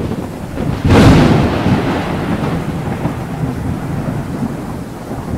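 Thunder sound effect: a loud thunderclap about a second in that rumbles away over a steady rain-like hiss.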